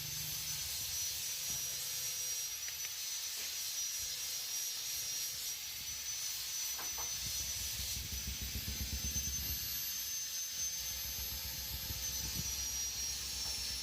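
A steady, high-pitched drone of insects in the forest, holding one shrill tone over a hiss, with a low rumble partway through.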